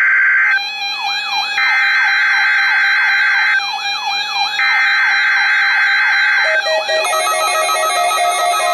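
NOAA Weather Radio Emergency Alert System SAME header: buzzing two-tone digital data bursts about two seconds long with a second's gap between, for a Required Weekly Test. The first burst ends about half a second in and two more follow. A steady electronic tone with a repeating falling chirp runs beneath them, and electronic music comes in near the end.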